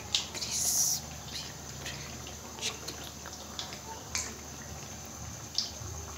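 Breadcrumb-coated chicken and cheese bread tikki deep-frying in hot oil: steady sizzling with scattered crackles and pops, and a louder burst of crackling near the start.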